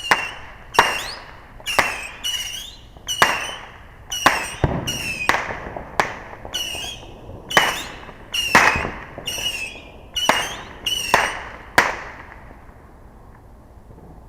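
Consumer fireworks going off in a rapid string: more than a dozen loud bangs, about one a second, many followed by a brief high whistle. They stop about twelve seconds in.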